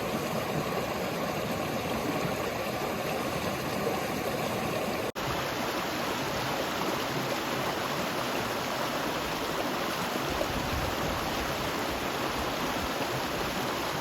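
River water rushing in a steady, continuous flow. It cuts out for an instant about five seconds in and resumes with a slightly different tone and more low rumble.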